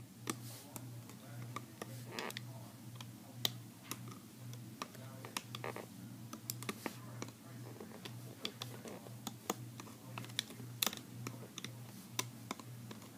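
Light, irregular clicks and taps as rubber bands are hooked off the plastic pegs of a Rainbow Loom with a metal-tipped hook, over a faint steady low hum.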